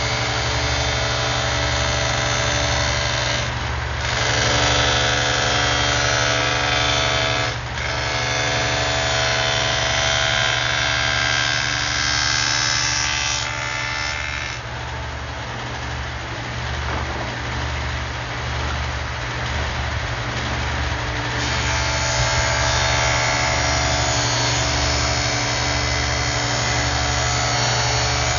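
Table saw running steadily while a plywood panel is fed through the blade, cutting a rabbet along its edge. The cutting sound changes for several seconds in the middle, with two brief dips earlier.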